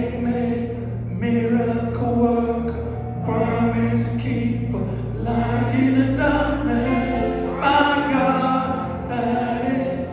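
Gospel worship music: voices singing over sustained instrumental accompaniment, phrase after phrase.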